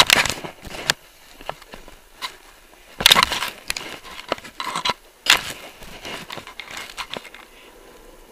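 A snowboard run heard through a body-worn action camera: irregular bursts of scraping, crackling noise that start suddenly, loudest about three and five seconds in, dying down near the end.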